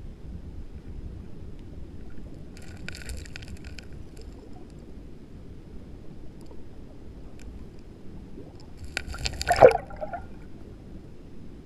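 Water sounds over a steady low rumble: a brief crackling hiss about three seconds in, and near the end a single louder splash whose pitch drops quickly.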